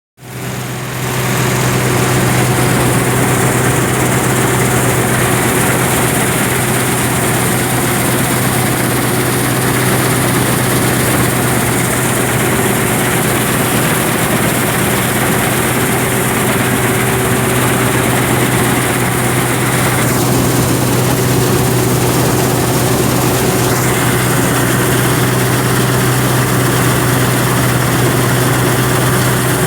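John Deere 955 combine harvester running steadily, its engine and machinery giving a constant low hum.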